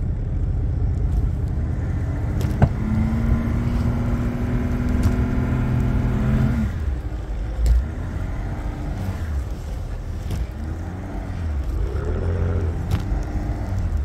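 Pickup truck engine running while driving slowly through deep snow. A steady drone sounds for a few seconds and stops about seven seconds in, and then the engine note rises and falls several times.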